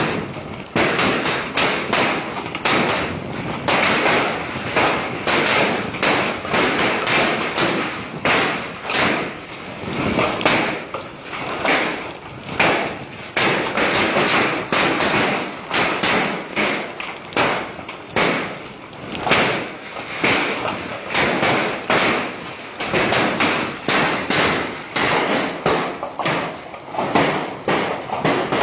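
Severe hailstorm: hailstones pelting down in a dense, continuous clatter, many sharp separate impacts over a steady rushing noise.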